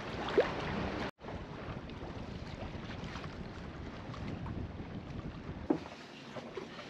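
Steady wind noise on the microphone with the sound of sea water around an anchored sailboat, breaking off briefly about a second in. A single short knock comes near the end.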